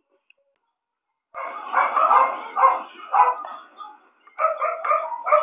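Dog-like yapping and whining that starts a little over a second in, then turns into a quick run of short yips near the end.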